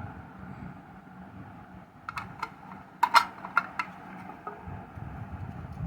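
Sharp clicks and taps of a diecast model car's plastic display box and base being handled, a few light ones about two seconds in and a louder cluster about a second later.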